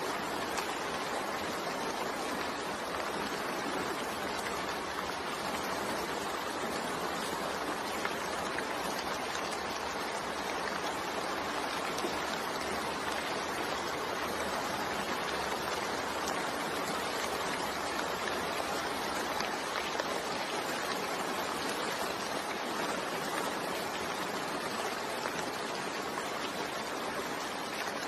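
Steady rainfall, an even hiss of drops without a break or thunder.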